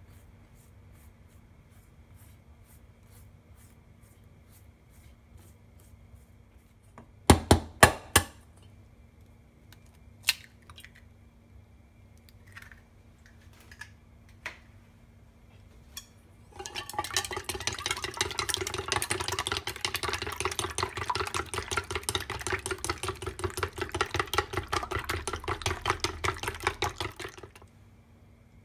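An egg being beaten in a stainless steel bowl: a fast, even clicking that runs for about eleven seconds in the second half. Earlier, about seven seconds in, come a few very sharp knocks, the loudest sounds here.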